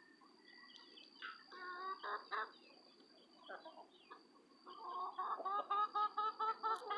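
Domestic hens clucking as they feed. There are a few scattered calls in the first half, then a quick run of short repeated clucks, several a second, over the last two seconds.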